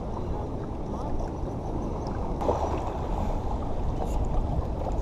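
Steady wind noise on the microphone over small waves washing against the jetty's rocks.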